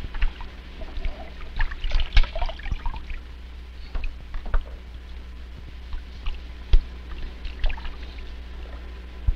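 Water splashing and sloshing in a shallow aquarium tank as hands move through it, in short irregular bursts, over a steady low hum.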